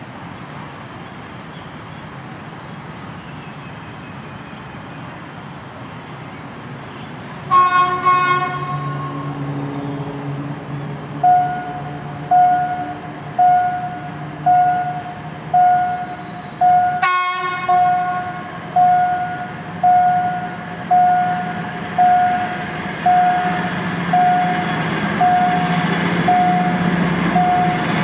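A diesel locomotive's horn sounds one long blast and, about ten seconds later, a short one, while a railway level-crossing warning bell dings about once a second. Near the end the rumble of the approaching train grows louder.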